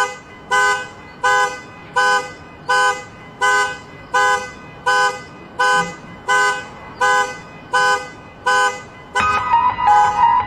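Car alarm sounding the car's two-tone horn in short honks at a steady rhythm, about one every three-quarters of a second. Near the end, piano music comes in over the honking.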